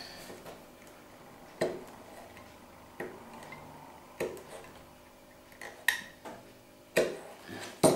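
Utility knife cutting small slivers off the edge of a leather piece on a cutting mat, rounding off a corner with tiny straight cuts. Each cut gives a sharp click, about six at uneven intervals of one to one and a half seconds.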